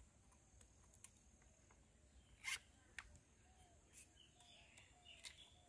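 Near silence with a few faint, separate clicks and knocks as a chainsaw lying on the ground is handled by hand; the saw is not running.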